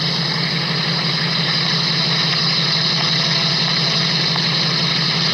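Steady hiss over a low hum, played back through the small speaker of a handheld voice recorder.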